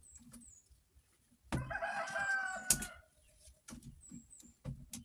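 A rooster crowing once, a single drawn-out call of about a second and a half starting about a second and a half in. Around it are a few light knocks and brief high chirps of small birds.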